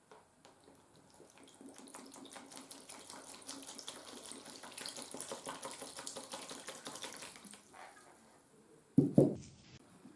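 Liquid poured from a glass bottle into a plastic tub, the splashing building over several seconds and stopping about seven and a half seconds in. About nine seconds in, a loud short knock as the rusty metal housing covers are set down into the tub.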